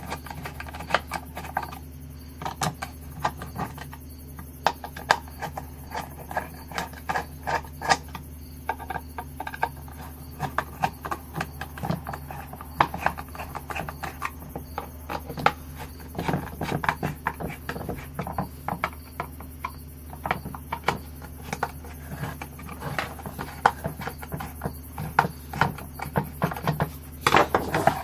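Hand screwdriver driving screws into a plastic trolling-motor mount plate: irregular small clicks and scrapes of the bit and screws turning, over a steady low hum.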